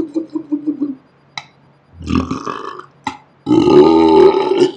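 A man's burps, slowed down: a rattling, pulsing burp trails off in the first second, and a shorter burp comes about two seconds in. The loudest is a long, deep belch from about three and a half seconds in, lasting over a second, with a couple of sharp clicks between the burps.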